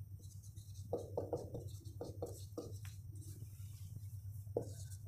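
Marker pen writing on a whiteboard: a run of short, faint strokes, bunched in the first half and a few more near the end, over a low steady hum.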